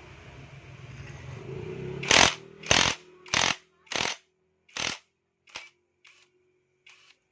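A workshop tool fired in about eight short bursts, each weaker and a little further apart than the last, after a sound that builds up over the first two seconds.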